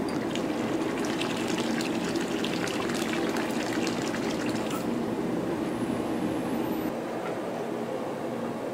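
Tap water running and splashing into a large steel wok as it fills, stopping about five seconds in, over a steady low kitchen hum.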